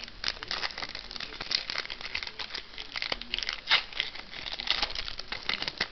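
A stack of trading cards being thumbed through in the hand: a quick, uneven run of dry flicks and sliding rustles as card slides over card.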